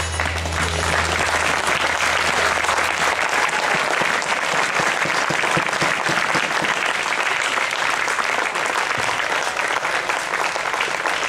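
Audience applauding steadily, with the last of the dance music dying away about a second in.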